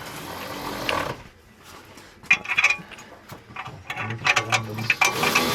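Irregular clicks and light knocks of parts and hand tools being handled, getting busier after about two seconds.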